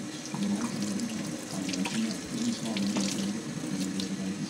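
Kitchen faucet running steadily into a stainless steel sink, the water splashing over soapy hands as the lather is rinsed off.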